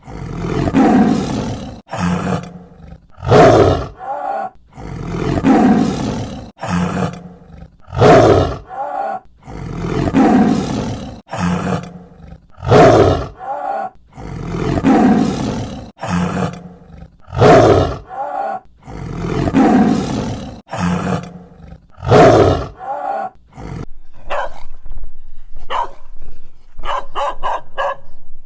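Tiger roaring over and over, one call about every two to two and a half seconds, each a short sharp call followed by a longer breathy roar. Near the end this gives way to a quicker run of short, evenly spaced calls.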